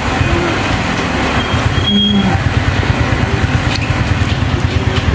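Air from an electric fan buffeting the microphone: a steady, loud low rumble with a rapid flutter.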